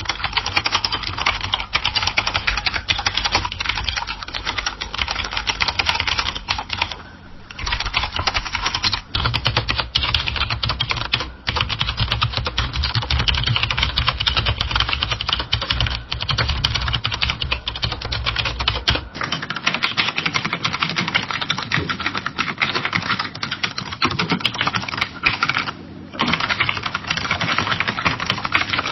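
Fast typing on a computer keyboard: a dense stream of key clicks, with brief pauses about a quarter of the way in and near the end. A low hum runs under the typing and stops about two-thirds of the way through.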